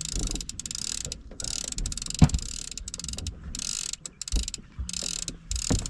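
Fishing reel being cranked, its gears and ratchet clicking in repeated stretches as line is wound in on a small catfish. Two sharp knocks stand out, about two seconds in and near the end.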